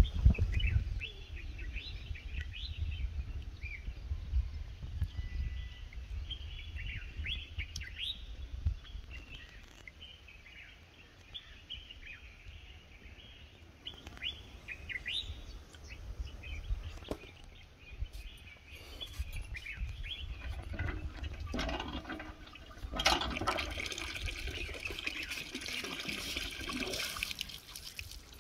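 Small birds chirping and calling repeatedly over a low rumble. In the last several seconds a louder rushing noise comes in.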